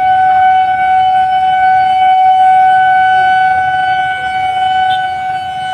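Fire engine siren sounding one steady, unwavering high tone with overtones, loud and held without a rise or fall.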